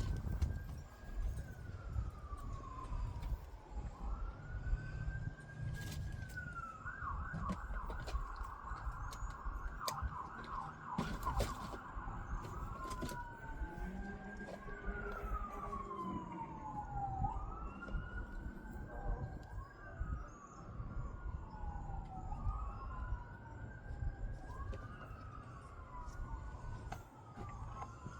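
Emergency vehicle siren wailing in long rising and falling sweeps, about one every three seconds, switching to a rapid yelp for several seconds partway through; the gardener takes it for a fire call.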